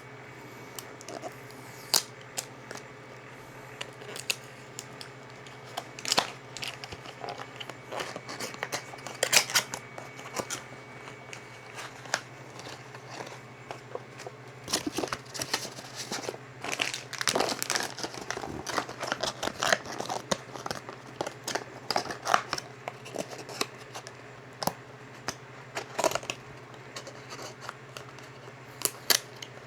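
Packaging of a UV ink cartridge being opened and handled: crinkling and tearing of wrapping with scattered clicks and taps, busiest in the middle, over a steady low hum.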